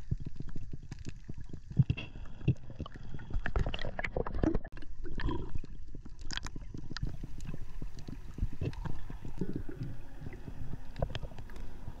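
Underwater sound picked up by a submerged camera on a rocky reef: a busy crackle of short clicks over a low rumble of moving water.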